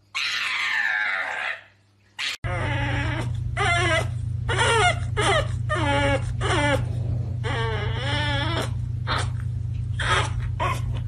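A pug gives a loud scream that falls in pitch for about a second and a half. Then a pug puppy whines and yowls in a long run of short cries, each bending up and down in pitch, over a steady low hum.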